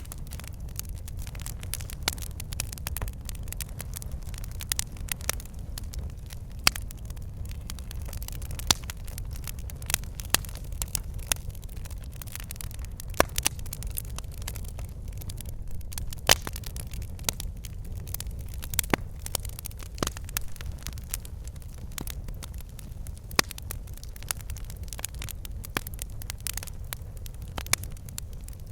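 Wood fire burning in a fireplace: a steady low rumble of flames with irregular sharp crackles and pops from the logs, several a second.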